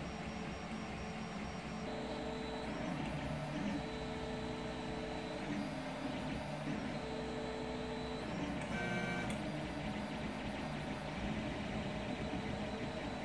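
Homebuilt CoreXY 3D printer running a print: its stepper motors whine in short tones that change pitch with each move of the print head, over the steady hiss of its cooling fans. A brief, higher-pitched whine comes about nine seconds in.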